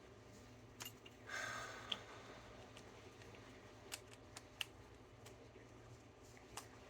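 Quiet handling of small objects on a workbench: a handful of light clicks and taps, with a brief scraping rustle a little over a second in, over a faint steady hum.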